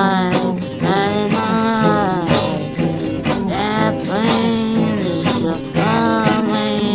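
Music: a song whose melody line glides and bends in pitch, over steady percussion.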